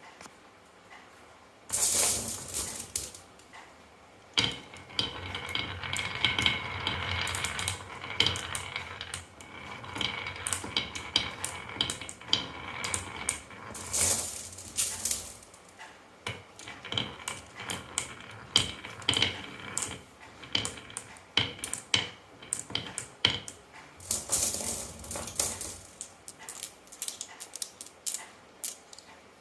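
Marbles rolling and clattering down a toy marble run: a long string of quick clicks, knocks and rattles, with several louder clattering bursts.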